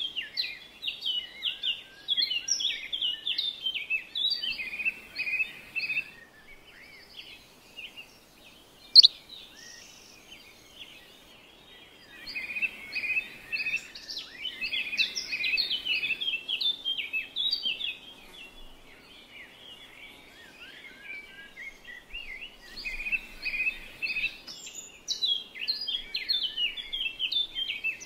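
Small songbirds chirping and twittering in quick, busy phrases, coming in three long runs with quieter stretches between. A single sharp click about nine seconds in is the loudest moment.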